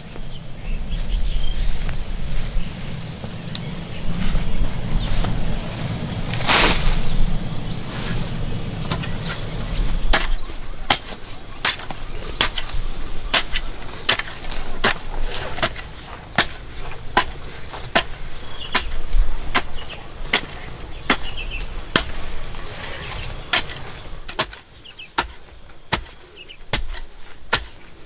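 Insects trilling steadily on one high note, with a series of sharp knocks or taps at irregular intervals, more frequent in the second half; a low rumble underlies the first ten seconds.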